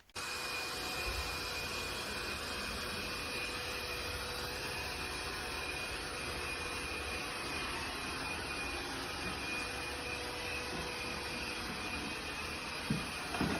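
Laresar robot vacuum's suction motor starting abruptly and running steadily at full power: a broad rushing noise with a steady high whine. There are a couple of light knocks near the end.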